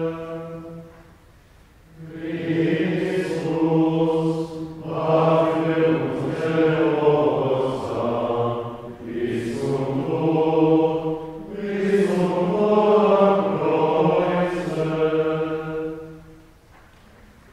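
Men's voices chanting liturgical plainsong of the Good Friday Tenebrae in unison, in long phrases with short breaks between them. The chant stops about a second before the end.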